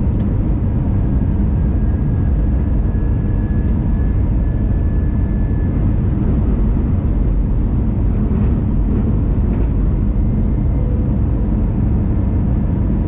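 Airbus A319 cabin noise during descent: the steady, even rush of the engines and airflow, heaviest in the deep end, with a faint thin tone for a few seconds near the start.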